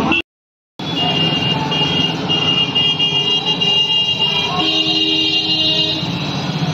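Compressed-air paint spray gun hissing as it sprays paint onto a car's body panel, over a steady machine hum with a high whine. The sound drops out briefly about half a second in.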